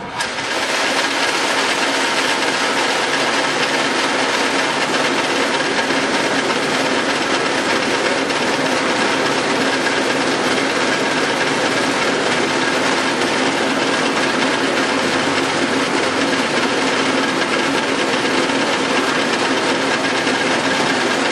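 Enco No. 30 mill-drill running steadily at its fast belt speed, its motor and belt drive giving a loud, even whine with several held tones, while a center drill is fed into a small banjo bolt.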